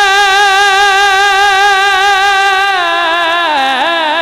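Male voice singing a devotional Urdu kalam with no instruments, holding one long note with vibrato, then sliding down through ornamented turns about three seconds in.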